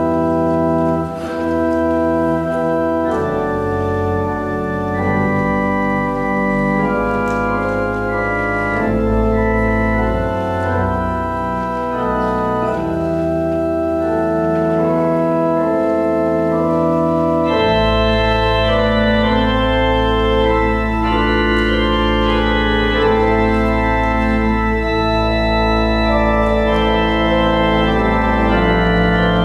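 Organ playing slow, sustained chords in a church service; a deep held bass note comes in about 18 seconds in and stays under the chords.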